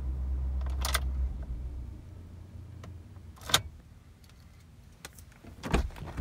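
2018 Ford F-150's engine idling with a low steady hum, then switched off: a click just under a second in, the idle cutting out right after and fading away. Then scattered clicks and a louder knock near the end.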